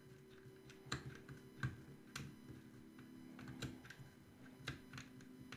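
Faint, irregular clicks and ticks of a small precision screwdriver driving tiny screws into a drone's plastic cover. A faint steady hum sits underneath.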